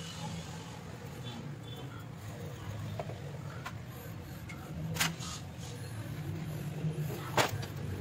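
Steady low hum of workshop background noise, with a few sharp clicks or taps, the loudest about five seconds in and again near the end.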